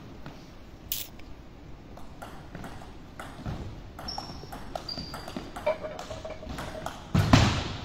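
Table tennis rally: the celluloid ball clicking off bats and table in an irregular series of sharp ticks, with rubber-soled shoes briefly squeaking on the wooden floor a couple of times. Near the end a louder heavy thump stands out.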